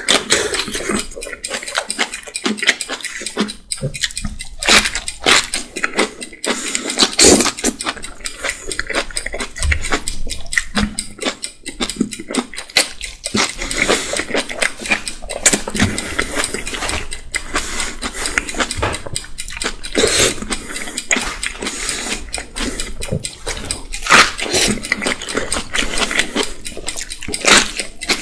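Close-miked eating of whole napa cabbage kimchi: wet crunching bites and chewing of the cabbage leaves, a dense run of irregular clicks and crackles.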